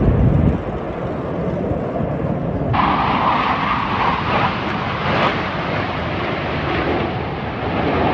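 Jet noise from the Blue Angels' F/A-18 Super Hornets flying past in formation: a steady, loud rushing roar. About a third of the way in, the sound abruptly turns brighter and harsher.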